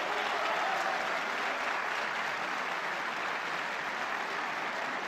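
Large audience applauding steadily, a dense even clapping with no voice over it.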